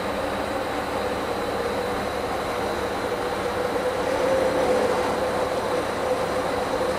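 OMAX abrasive waterjet cutting through half-inch aluminium, with the nozzle running under a noise-damping muff below raised water: a steady rushing hiss with a low hum and a faint high whine in it.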